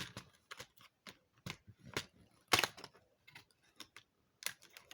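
Advent calendar packaging being handled while a door is opened and a small jewellery piece is taken out: a run of small clicks and scrapes, the loudest about two and a half seconds in.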